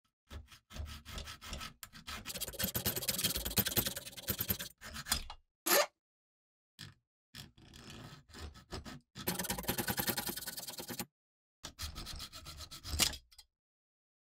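Small junior hacksaw cutting brass stock clamped in a vise: quick back-and-forth rasping strokes in three spells with short pauses between, and a sharp click between the first and second spells.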